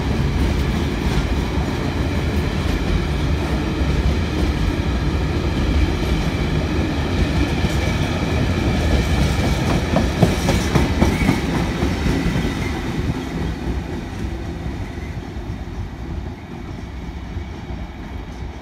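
Long freight train of ballast hopper wagons rolling past close by, a steady rumble of wheels on the rails with a few sharp clicks about halfway through. The noise fades away over the last few seconds as the end of the train passes.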